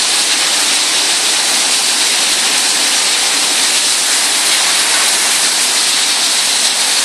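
Steady, loud rushing hiss of water spray and falling water, unbroken throughout.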